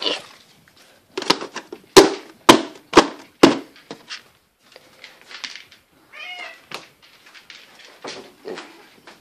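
A quick series of about five sharp plastic clacks and knocks as a plastic storage bin is handled, followed a few seconds later by a single cat meow.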